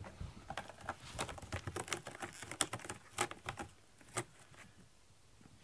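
Cat's claws and paws scratching and pattering on a corrugated cardboard scratcher: a quick, irregular run of scratches and taps that stops about four seconds in.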